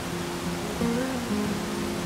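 Background acoustic guitar music playing held, changing notes over a steady rush of noise like fast-flowing water.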